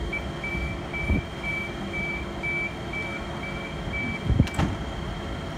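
Door-closing warning beeps on a Sydney Trains Oscar (H-set) electric train: a steady high beep repeated about twice a second, signalling that the doors are about to shut before departure. The beeps stop with a thud about four and a half seconds in.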